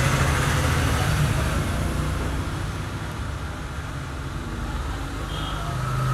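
Steady background noise with a low hum, easing off in the middle and swelling again near the end.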